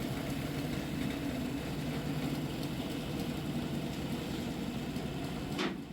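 A motor running steadily with a low hum, ended by a sharp click near the end, after which the sound is quieter.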